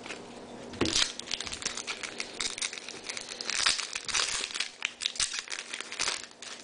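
A trading card pack's wrapper being torn open and crinkled by hand: a run of crackling rustles that starts about a second in and stops shortly before the end.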